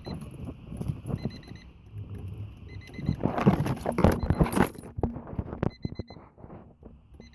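A car's electronic warning chime beeping in short groups of quick pips, repeated every second or so. About three seconds in, a loud rattling clatter takes over for a couple of seconds.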